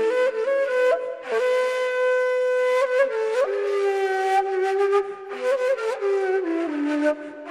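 Ney, the end-blown reed flute of Mevlevi Sufi music, playing a slow melody of long held notes that slide from one pitch to the next.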